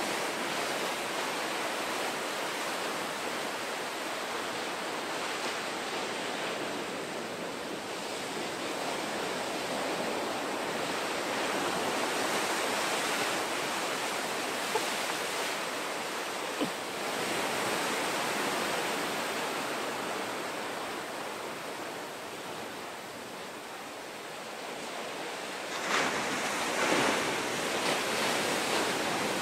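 Ocean surf breaking and washing over the shore, a steady rushing noise, with a louder wave crashing near the end.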